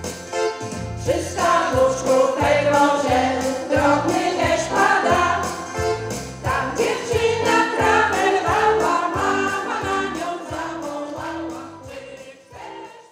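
Women's folk choir singing in unison over electronic keyboard accompaniment with a steady beat; the voices come in about a second in, and the music fades out near the end.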